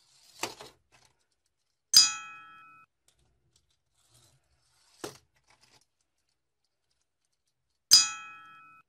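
A bright bell-like chime sound effect strikes twice, about two seconds in and again near the end, each ringing out for under a second. Fainter clicks of small plastic toy cars being set down on a table come between.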